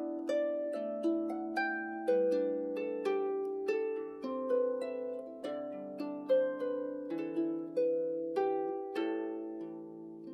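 Celtic harp playing a slow melody of plucked notes, each ringing on and decaying under the next. The notes die away near the end.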